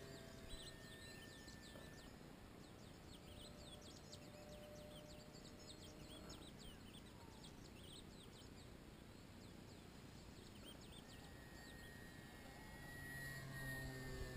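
Faint birdsong, many quick high chirps, over a near-silent meadow. The thin steady whine of a radio-controlled trainer plane's motor is faintly there at the start and grows louder in the last couple of seconds as the plane comes low.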